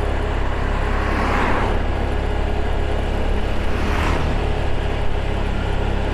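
A car driving along a road, its engine and tyre noise making a steady low rumble, with two brief swells of hiss, about a second and a half in and again at about four seconds.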